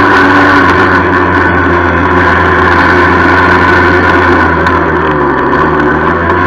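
The 49 cc two-stroke single of a 1976 Yamaha FS-1 moped running under way, with a rattle. Its note dips briefly about five seconds in and picks up again.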